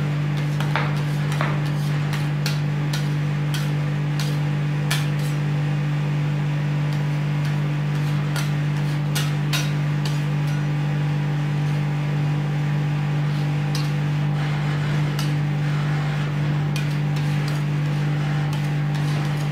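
Metal spatulas tapping and scraping on the steel freezing plate of a rolled-ice-cream pan as the mixture is spread and chopped, with a sharp click every second or so. Under them runs a steady low hum that is louder than the taps.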